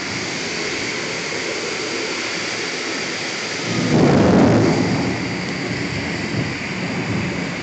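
Torrential rain pouring steadily, with a roll of thunder that swells up a little over halfway through and fades within about a second and a half.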